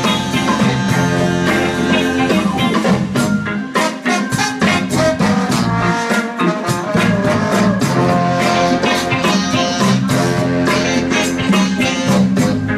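Live soul-funk band playing a steady groove, with electric guitar, bass guitar, congas and drums, and a horn section of trumpet and saxophones.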